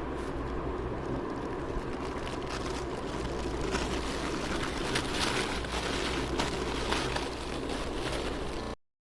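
A 300 wala string of small bijili firecrackers bursting in a rapid, continuous crackle of many small bangs, thickest in the middle. The sound cuts off suddenly near the end.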